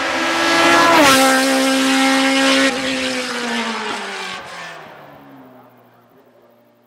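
Gloria C8P Evo hillclimb prototype's Suzuki Hayabusa inline-four motorcycle engine at high revs as the car passes. It is loudest about a second in, where its pitch drops sharply, then holds a steady note and fades away as the car drives off.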